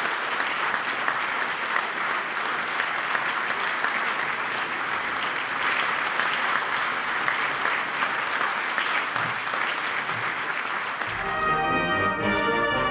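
Audience applauding steadily to welcome a brass band. About eleven seconds in, the brass band starts playing.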